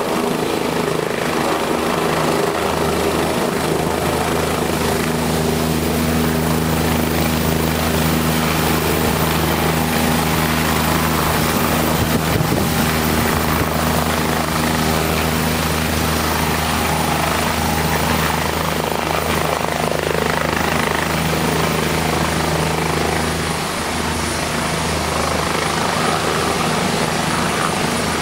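OH-58D Kiowa Warrior helicopter hovering low and turning in place, its four-bladed main rotor and turbine running at a steady pitch.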